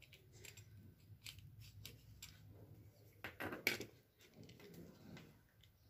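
Plastic clicks and small snaps from the electric blanket's handheld controller casing being pried open, with a louder cluster of snaps about three and a half seconds in as the halves come apart.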